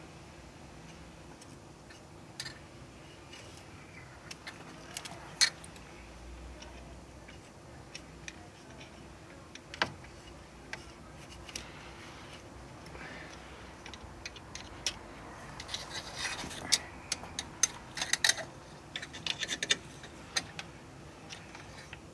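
Scattered metallic clicks and taps of hand tools against the oil pan, sparse at first and then a quick flurry of clicks in the second half, as a flathead screwdriver is worked into the pry corner of an oil pan stuck on with RTV sealant.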